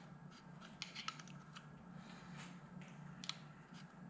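Faint scattered clicks and small rustles of distributor parts being handled by hand, over a steady low hum.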